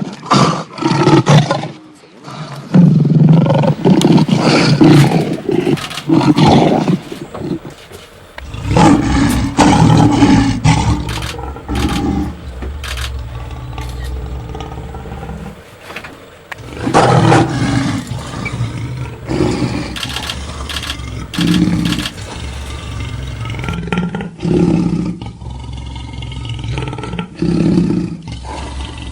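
Lion roaring: long, loud roars in the first part, then a run of shorter grunting calls every second or two. A steady low hum starts about a third of the way in and runs underneath.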